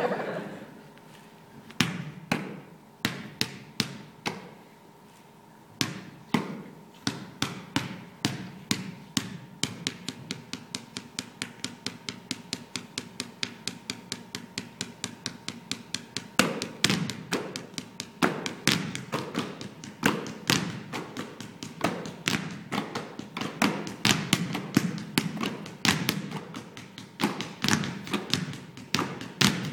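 Basketballs bounced on a wooden stage floor as a percussion piece: a few single bounces at first, then a steady beat that grows denser and louder from about halfway through.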